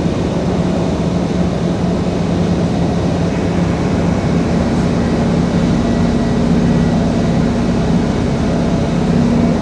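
Mercedes-Benz Actros 1844 truck's V6 diesel engine running steadily while the truck is under way, heard from inside the cab. Its note firms up a little about halfway through, over a constant rush of road and tyre noise.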